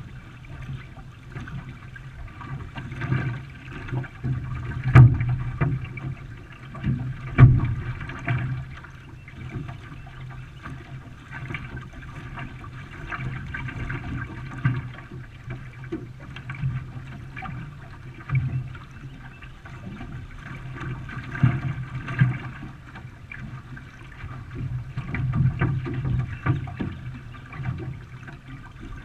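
Water splashing and rushing around a racing canoe under paddle, in uneven surges, with two sharp knocks about five and seven and a half seconds in.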